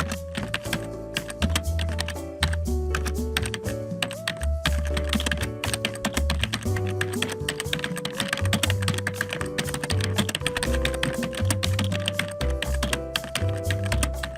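Computer keyboard typing: a fast, continuous, irregular clatter of key clicks, over background music with a simple stepping melody and a bass line.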